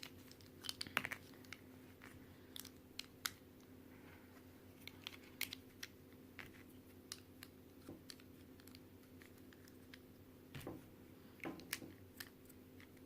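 Faint plastic clicks and light clattering as the pieces of a Qiyi stickerless Square-1 puzzle cube are fitted back into the puzzle, with a small cluster of clicks near the start and again near the end.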